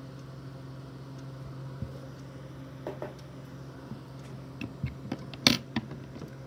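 Light clicks and taps from a vape mod being handled, then one sharp knock about five and a half seconds in as the mod is set down on a wooden table, over a steady low hum.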